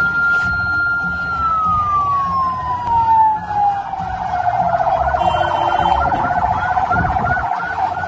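Vehicle siren: a held high wail that slides down in pitch, then switches to a fast warble of about three cycles a second, over the rumble of engines and traffic.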